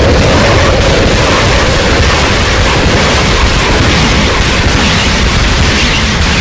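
Harsh noise from live turntables played through a mixer: a loud, continuous distorted rumble with a hissing wash on top and no beat. A mid-pitched drone fades out in the first second or two, and the hiss grows brighter near the end.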